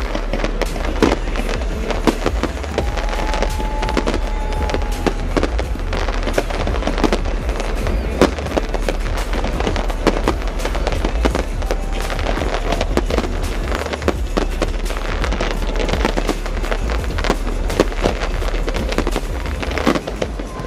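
Fireworks display with aerial shells bursting in a rapid, unbroken barrage of bangs and crackling, and music underneath.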